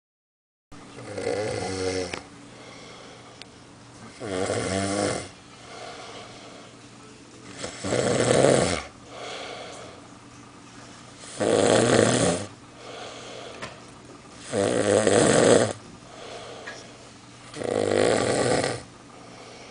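A man snoring very loud in his sleep: six long snores, each about a second long and coming roughly every three and a half seconds, with quieter sound between them.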